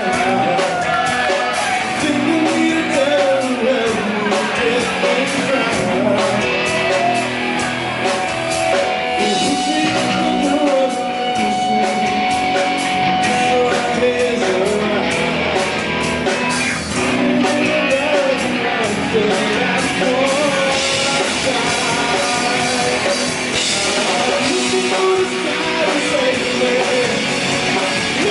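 Live rock band playing with a singer, electric guitar and drums at full volume, heard in a bar room.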